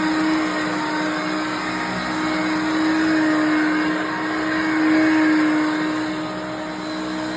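A 1988 Hoover Concept One upright vacuum cleaner running: a steady motor hum under a rush of air, swelling slightly in loudness as it works.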